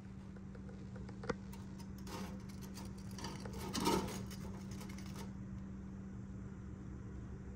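Metal tongs clicking and scraping against the wire mesh basket of a deep fryer while lifting out fried fish fillets, with a louder clack about four seconds in; the clicking stops about five seconds in. A steady low hum runs underneath.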